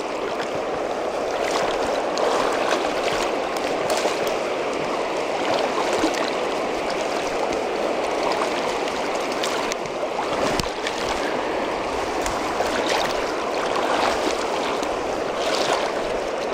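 River current rushing steadily past: a continuous water noise from the Rogue River flowing around the angler.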